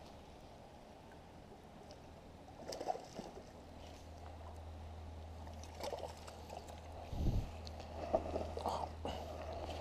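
Scattered rustling and knocking handling noises from an angler moving in shoreline brush with a spinning rod, over a low steady rumble that begins a few seconds in, with one dull thump about seven seconds in.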